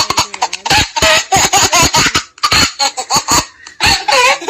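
A recorded laughter sound effect being played back: a run of short, rapid laughs with wavering pitch, broken by a brief pause about halfway through.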